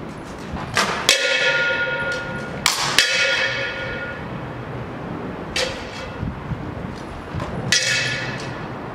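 Shamshir sabres and bucklers clashing in sparring: sharp metallic strikes, mostly in quick pairs about a second, three seconds and near the end, each leaving a ringing tone that dies away over about a second.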